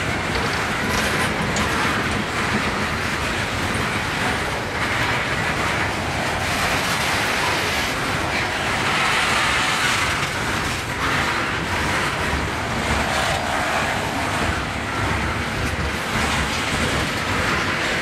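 A freight train of steel open-top hopper cars rolling past close by: a steady noise of steel wheels running on the rails.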